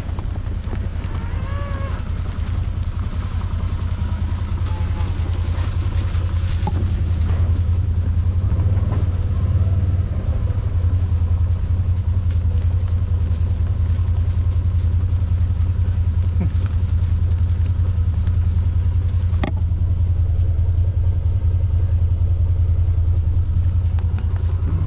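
Farm utility vehicle's engine running steadily at idle, a low even rumble, with a single sharp knock about twenty seconds in.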